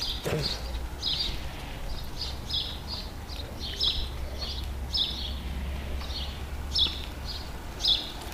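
Small birds chirping over and over, short high chirps every half second to a second, over a steady low rumble.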